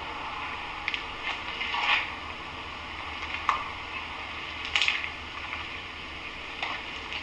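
Footsteps crunching over broken plaster and debris on a littered floor: a handful of short, irregular crunches, the loudest about two seconds in and just before the five-second mark, over a steady background hiss.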